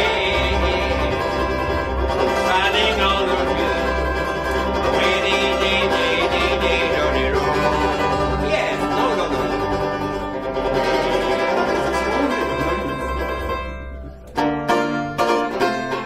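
Instrumental intro of a folk song on banjo and double bass, with a wavering held melody line over them. About fourteen seconds in the music briefly drops away, then the plucked banjo comes back clearly.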